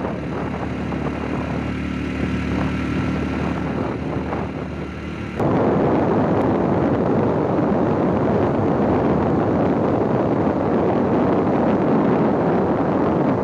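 Motorcycle engine running steadily while riding, with wind on the microphone. About five seconds in, the sound switches abruptly to heavy wind buffeting across the microphone that covers the engine.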